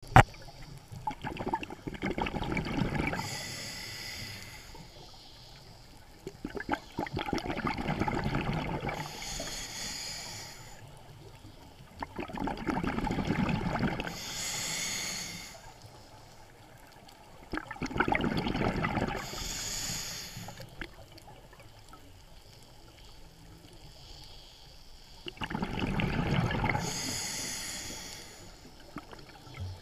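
Scuba diver breathing through a regulator underwater: five breath cycles about every five to six seconds, each a rumbling, crackling rush of exhaled bubbles with a high hiss near its end, quieter between breaths. A sharp click right at the start.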